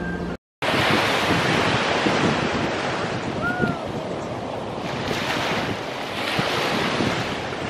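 Sea waves washing onto the shore, a continuous rushing surf that swells and eases, with wind buffeting the microphone. A single short high call, rising then falling, about three and a half seconds in.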